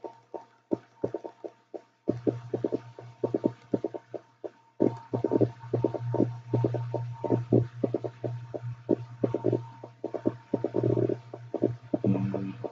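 Computer mouse clicking rapidly, several irregular clicks a second, as checkboxes in a list are unticked one after another, over a steady low electrical hum that drops out for the first couple of seconds.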